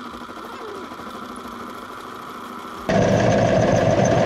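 Small metal lathe running, then about three seconds in the cutting tool bites into the spinning metal tube and a much louder grinding, chattering cut with a high squeal takes over. The turner takes the tool to be set too high, rubbing and polishing more than cutting.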